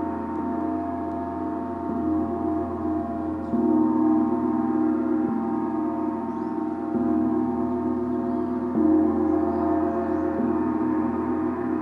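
Gong ringing with a dense, sustained hum of many overtones, swelling again with fresh soft strikes several times.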